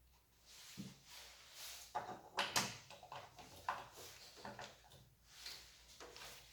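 Irregular handling noises from unboxing: rustling and scraping with a few sharp knocks, the loudest about two and a half seconds in.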